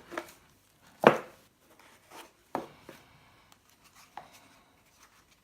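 Leatherman Tread metal link bracelet being handled, giving a handful of separate knocks and clicks, the loudest about a second in.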